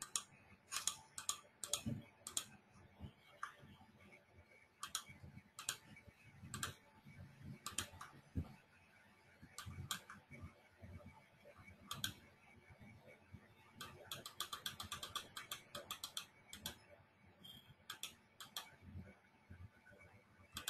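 Faint, irregular clicks of a computer keyboard and mouse, with a quick run of keystrokes about two-thirds of the way through.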